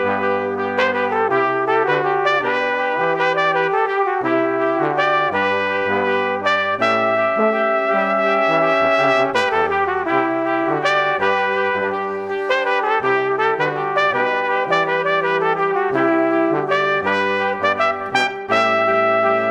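Instrumental background music led by brass, trumpet and trombone playing a busy melody over a stepping bass line.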